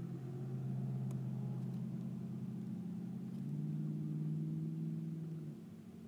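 A low engine hum with a steady pitch that shifts about three and a half seconds in and stops about half a second before the end.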